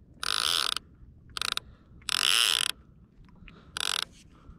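Fishing reel's clicker ratcheting in four short bursts of rapid clicks as line pays out. A live opelu bait is swimming off with the line.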